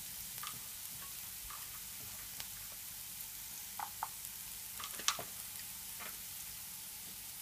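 Diced vegetables (onion, carrot, beans, peas and bell pepper) sizzling in a little oil in a frying pan: a steady hiss with a few short sharp clicks, the loudest about five seconds in.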